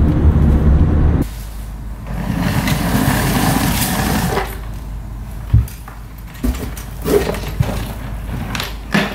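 Car cabin rumble for about a second, then a wheeled suitcase rolling and scraping for a couple of seconds, followed by several knocks and thumps as it is pulled in through a front door.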